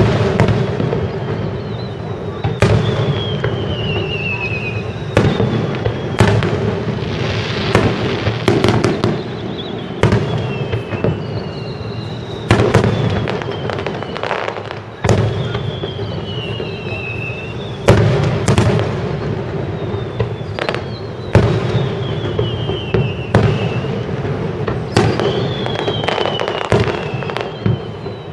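Aerial fireworks display: shells bursting in sharp cracks and booms every second or two over a continuous rumble. A high whistle falling in pitch comes back every few seconds.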